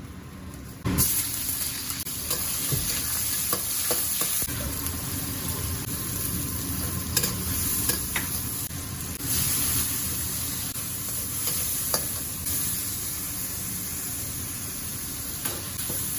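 Food hitting hot oil and sizzling steadily while it is stir-fried, with a few clinks of the spatula against the pan. The sizzle starts suddenly about a second in.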